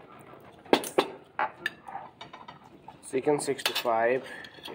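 Metal cutlery clinking and scraping against plates, with a few sharp clinks in the first two seconds. A person's voice sounds briefly near the end.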